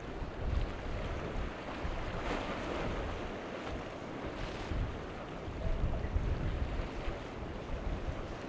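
Wind buffeting the microphone in uneven gusts over the wash of choppy surf, with a louder rush of breaking water about two seconds in and again near the halfway point.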